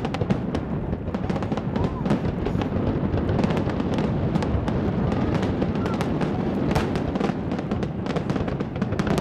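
Aerial fireworks bursting in quick succession: many sharp bangs and crackles overlapping, several a second, with no break.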